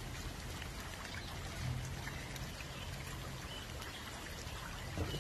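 Floodwater runoff running and trickling steadily over wet ground.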